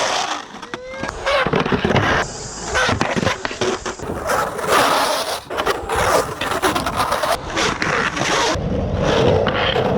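Skateboard wheels rolling and sliding sideways on concrete during Bert slides, hand-down carving slides with the urethane wheels scraping. The sound changes abruptly several times.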